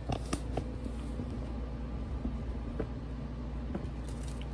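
Plastic bag being handled, with a few soft rustles and light knocks over a steady low hum.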